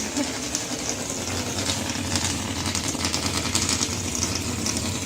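Giant whoopee cushion deflating with a long, low, fluttering rasp.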